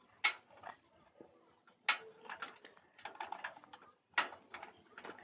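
Clicks and knocks of computer parts being handled during a desktop PC teardown, three sharp ones about a quarter second, two seconds and four seconds in, with lighter ticks between.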